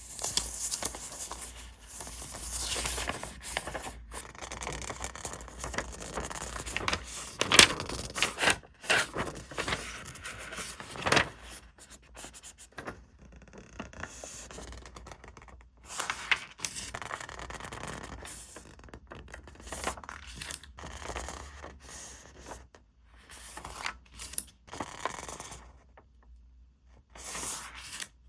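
Paper and plastic packaging and journaling supplies being handled: irregular rustling, scraping and tearing, with a few sharp taps, the loudest about seven and a half seconds in, and short pauses.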